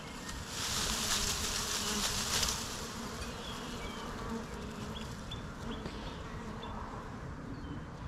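Many honeybees buzzing steadily as they forage on a flowering bush. A loud hiss overlies the buzzing from about half a second in for about two seconds.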